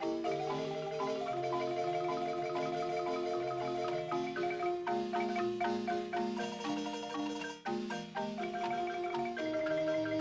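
Marimba music: a melody played over chords, with many mallet notes sounding together and some held. There is a brief break about seven and a half seconds in.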